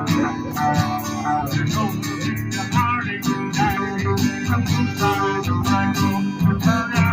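Live band playing a song, with strummed acoustic guitar to the fore over bass and steady rhythmic beats.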